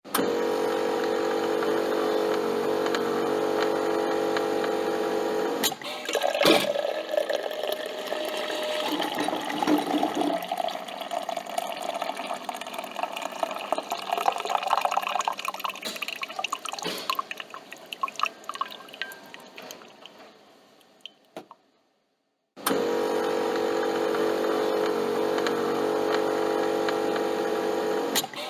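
Coffee machine running with a steady hum, then after a click a spluttering, dripping liquid sound that slowly fades out. After a second of silence the steady hum starts again near the end.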